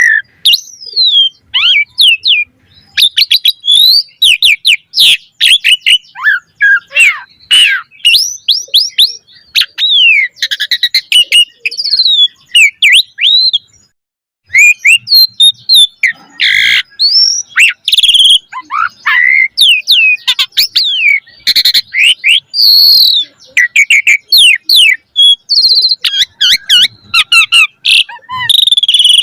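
Asian pied starling (jalak suren) singing a fast, varied stream of whistles, chirps and rising and falling slurs, studded with harsh rasping notes and phrases mimicked from other birds. There is a brief pause about halfway through.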